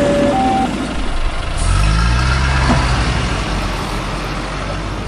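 Truck engine sound effect: an engine running with a low rising hum from about a second and a half in, after a two-tone beeping in the first second.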